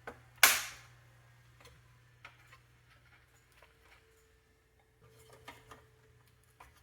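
One sharp, loud clack about half a second in, then scattered light clicks and taps of parts being handled during work inside an all-in-one desktop computer.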